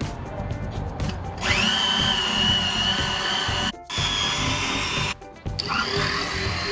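Hand-held grinding machine buffing the tyre rubber around a sidewall hole to prepare it for a patch: it spins up to a steady high whine about a second and a half in, cuts out twice briefly and starts again each time. Background music plays underneath.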